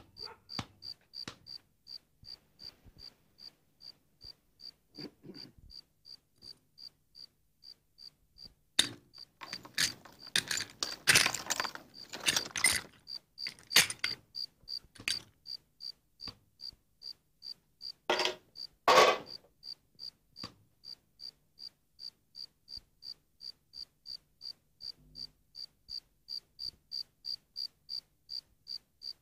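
A cricket chirping steadily, about three even chirps a second. Louder knocks and rustles break in over it, in a cluster a third of the way in and again about two-thirds in.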